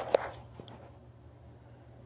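Small plastic toy figures being handled: a sharp plastic click just after the start and a fainter tap about half a second later, then a low steady hum.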